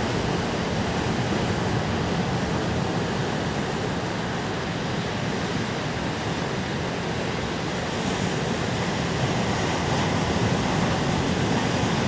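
Ocean surf washing in along a rocky shoreline: a steady, continuous rush of breaking waves that swells a little near the end.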